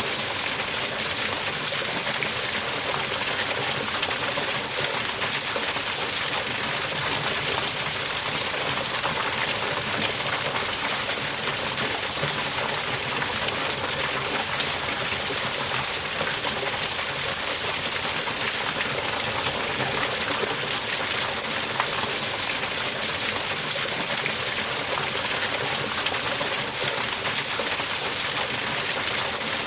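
Water pouring steadily over a sewer spillway into a culvert: an even, unbroken rushing and splashing.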